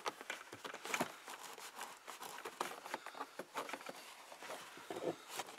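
Faint rustling and scattered small clicks of a dash cam cable being pushed and tucked behind the Ford F-150 cab's plastic interior trim panel by hand.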